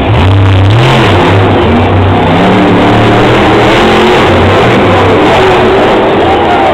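Monster truck's supercharged V8 engine revving hard, its pitch rising and falling as the throttle is worked through a turn and a ramp launch. Very loud throughout.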